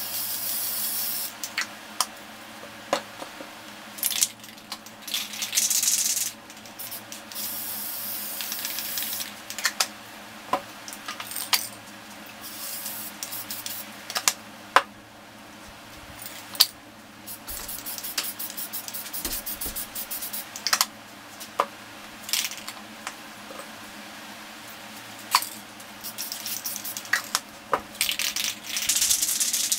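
Aerosol spray paint cans hissing in bursts of one to two seconds as paint is sprayed, with sharp clicks and clinks scattered between the bursts.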